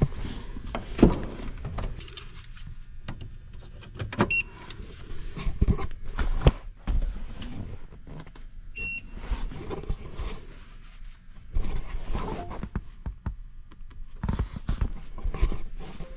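Irregular knocks, clunks and rustling of things being handled, with two short high electronic beeps, about four and about nine seconds in.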